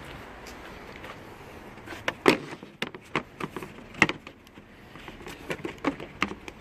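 Irregular clicks and knocks of hands, tools and parts being handled on a car, with two sharper knocks about two and four seconds in.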